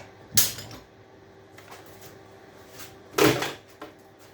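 Two sharp clunks of scrap being handled, about three seconds apart, the second a little longer with a brief rattle.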